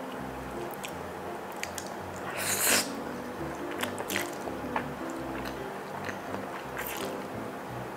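A person slurping and chewing sauce-coated instant noodles, with one loud slurp about two and a half seconds in, shorter slurps later and wet mouth clicks, over background music with a steady beat.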